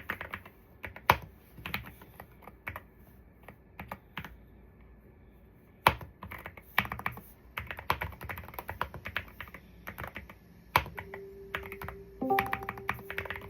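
Typing on an Akko wooden mechanical keyboard: irregular runs of keystroke clacks with short pauses. Near the end a few steady held musical tones come in over the typing.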